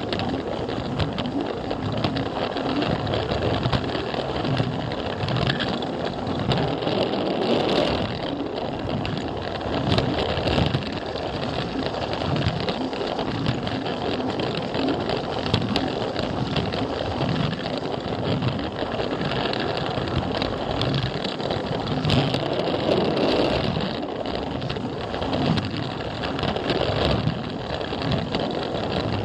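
Plarail toy train's small electric motor and gearbox whirring, with the wheels rattling and clicking over the plastic rail joints, picked up by a camera riding on the train.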